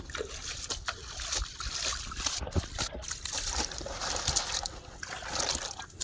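Water splashing and sloshing in a plastic tub with live fish in it as the tub is handled and lifted, in many short uneven splashes.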